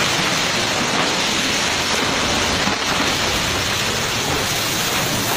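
Steady rushing noise of heavy rain and a landslide of mud and water pouring down a hillside.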